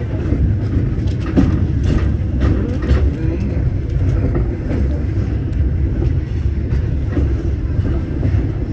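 Disneyland Paris Railroad train running along the track: a steady low rumble with scattered clicks and knocks from the wheels and rails.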